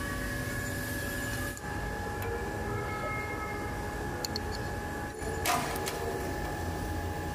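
Metal lathe running: a steady motor and gearbox hum with a high, even whine. It breaks off abruptly twice, and a short burst of noise comes just after the second break.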